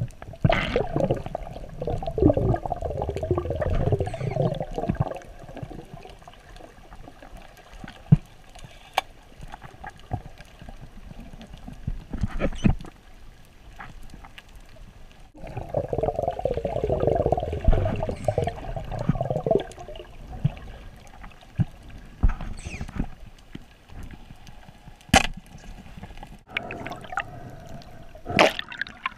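Underwater sound heard through a diving camera: two long stretches of rushing, gurgling water noise, one in the first few seconds and one around the middle, with scattered sharp clicks and knocks in between.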